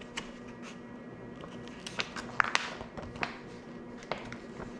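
Light handling sounds on a tabletop: a scattering of soft clicks and taps, a few of them sharper about two to three seconds in, over a faint steady hum.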